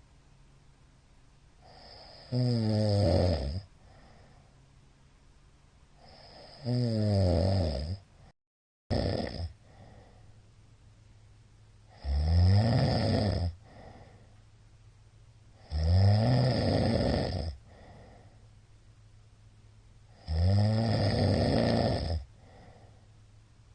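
A middle-aged man snoring loudly in his sleep: five long snores, each about one and a half to two seconds, coming about every four seconds, with quieter breathing between. The audio drops out for a moment about eight seconds in.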